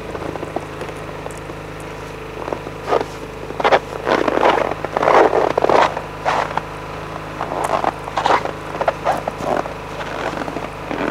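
A quilted fabric cover rustles and scrapes in irregular bursts as it is pulled over a snowmobile, with footsteps in snow. A steady low hum runs underneath.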